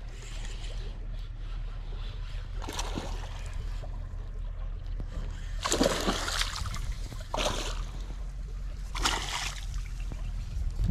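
Water splashing four times at the bank, the loudest about six seconds in, as a caught pike thrashes in the shallows, over a steady low hum.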